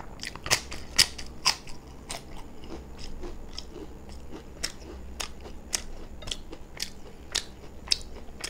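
Close-up crunching and chewing of a crisp fried papad: sharp cracking crunches come quickly and loudest in the first couple of seconds, then continue more sparsely as the chewing goes on.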